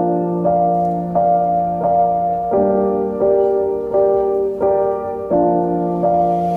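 Background music: a gentle piano-like keyboard tune, a note or chord struck about every three quarters of a second.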